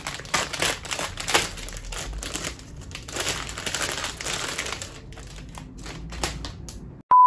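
Clear plastic packaging bag crinkling and rustling as headbands are handled and pulled out of it, making dense crackles. The handling grows quieter after about five seconds, and a short high beep sounds at the very end.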